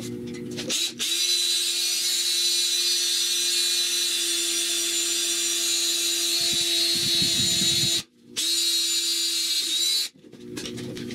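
Cordless drill boring into square steel tubing, running steadily for about seven seconds, stopping briefly, then running again for about two seconds before it stops.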